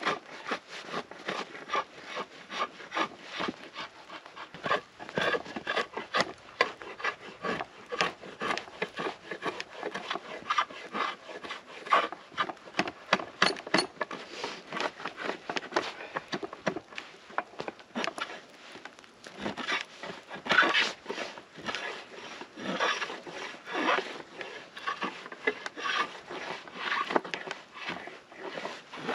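A small Arno drawknife with a slightly curved blade shaving the inner bark off a dried Douglas fir branch. The sound is a run of short, repeated scraping strokes of steel on wood.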